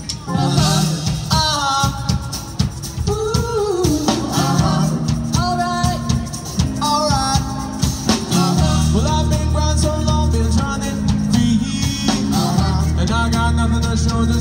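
Live band playing, with a drum kit, bass and guitar under sung vocal lines.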